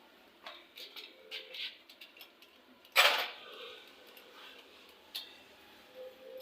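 Hand tools and engine parts being handled on a workbench: a few light clicks and taps, then one loud clank about three seconds in that dies away quickly, and another click near the end.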